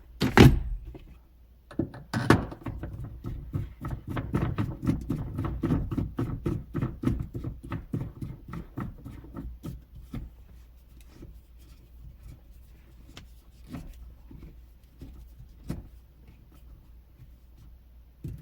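Handling noise: two knocks, then a dense run of small clicks and rustles for several seconds that thins out to scattered single clicks.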